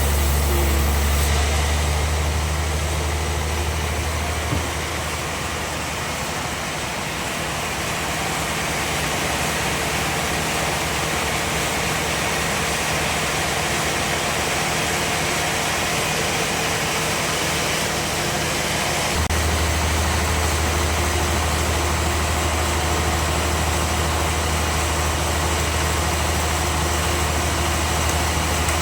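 Sawmill band saw machinery running steadily with a loud mechanical drone. A deep low hum in it drops away about five seconds in and comes back about two-thirds of the way through.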